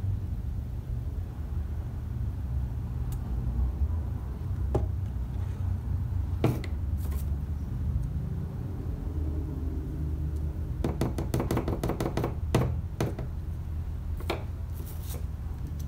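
Scattered light clicks and knocks of small plastic mixing cups, stir sticks and brushes being handled and set down on a work table, with a quick run of taps about eleven seconds in. A steady low rumble runs underneath.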